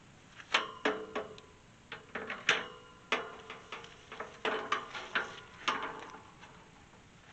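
Tubular steel farm gate clanking and rattling as it is handled, a string of metal knocks, some with a brief ring after them.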